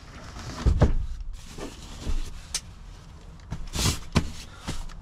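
Handling noises in a pickup truck bed under a canopy: a few dull thumps and knocks, loudest about a second in, and a short rustle near the end as a sleeping bag on the bed platform is smoothed out.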